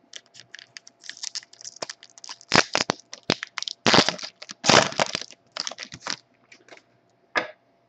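A foil trading-card pack being torn open and crinkled, with the cards inside clicking and rustling as they are handled. There are quick taps and several louder rustles near the middle, and the sound thins out toward the end.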